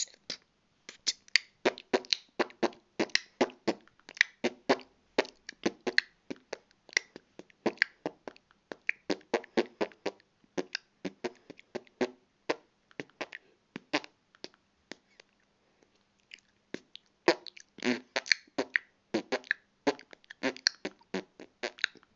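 A boy beatboxing: rapid mouth-made clicks, pops and percussive sounds in an uneven rhythm, with a brief pause about two-thirds of the way through.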